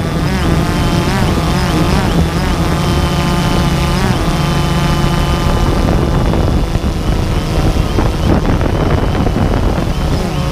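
Multirotor drone's motors and propellers whirring steadily, their pitch wavering up and down as it manoeuvres, over wind rumble on the microphone.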